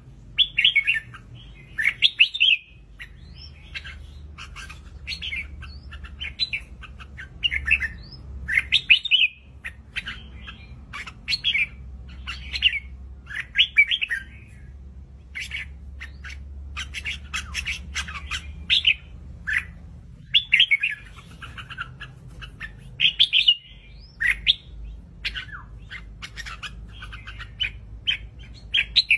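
Red-whiskered bulbul singing: short, bright chirping phrases repeated about once a second, with brief pauses between runs.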